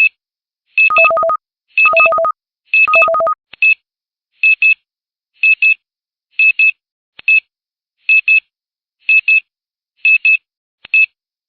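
Digital timer alarm beeping, signalling the end of a five-minute countdown. Short bursts of quick high beeps come about once a second; the first three are joined by a lower four-pulse beep.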